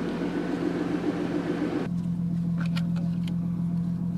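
Vehicle engine idling steadily. A rushing noise lies over it for about two seconds, then cuts off suddenly, leaving the idle and a few light clicks.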